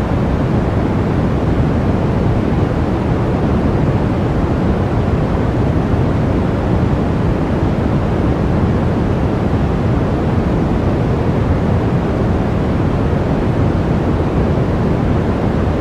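Blizzard wind blowing hard and steadily, a deep, even rush with no gusts or breaks.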